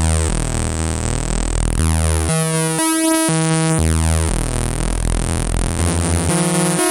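PAiA Fatman analog synthesizer playing a run of buzzy notes rich in overtones, alternating deep bass notes with higher ones about once a second, with a sweeping effect moving through the sound.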